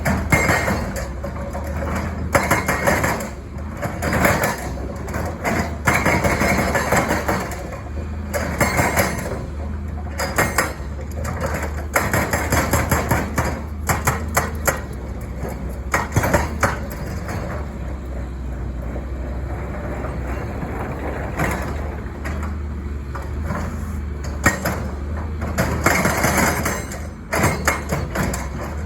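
Hydraulic breaker on a Caterpillar 320 excavator hammering in spells of rapid blows, with short pauses between them, over the excavator's diesel engine running steadily.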